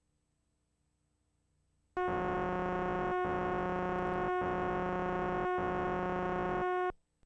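A loud, steady electronic buzzing tone starts about two seconds in and holds for about five seconds, with three brief dropouts about a second apart, then cuts off suddenly.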